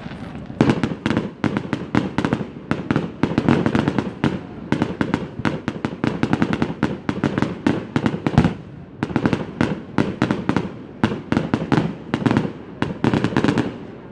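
Aerial fireworks going off in a rapid barrage, several sharp bangs a second, with a brief lull about eight seconds in.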